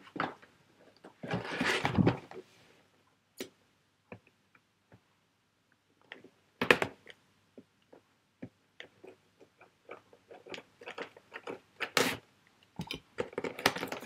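Scissors cutting open the ends of a cardboard toy box, with cardboard rustling and scraping and irregular small clicks. A longer rustle comes about a second in, and louder sharp snaps about halfway and near the end.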